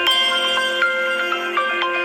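Mobile phone ringtone playing: a quick melody of short notes over held lower notes, with a new note every few tenths of a second.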